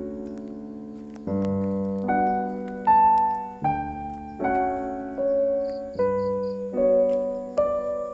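Background piano music: a slow melody over chords, with a new note or chord struck roughly every second and each one fading away.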